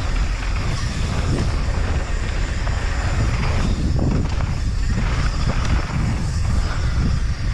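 Wind buffeting an action camera's microphone on a downhill mountain bike at speed, with the tyres rolling over loose, dry dirt. A steady, loud rush with no pauses.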